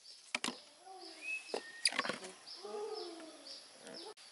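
Small splashes and knocks of water in a metal basin as a baby monkey is bathed, with faint soft calls and birds chirping repeatedly in the background.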